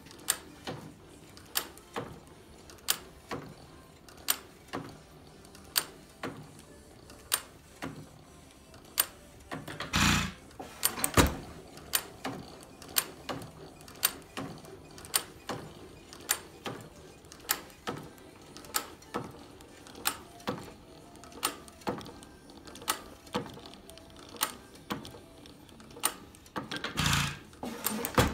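6 hp Field Brundage sideshaft hit-and-miss engine running: a sharp click a little more than once a second as it coasts between firings, with louder firing strokes about ten seconds in and again near the end.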